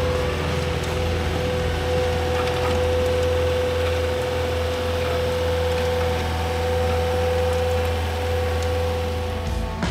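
Cat 308D mini excavator's diesel engine running steadily under work, with a constant low hum and a steady whine that holds one pitch throughout.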